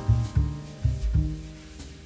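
Instrumental background music with a bass line and pitched notes on a regular beat.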